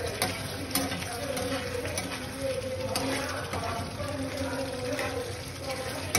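Metal spatula stirring a thick curry in a frying pan, scraping the pan with a few sharp clicks, over a steady wet hiss from the cooking gravy and a wavering hum.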